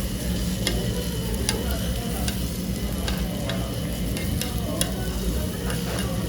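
Okonomiyaki batter sizzling on a hot tabletop griddle, with scattered sharp clicks over a steady low hum.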